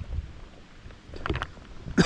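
Creek water swishing and splashing around legs as someone wades against the current, with wind rumbling on the microphone and a brief burst of splashing a little past halfway.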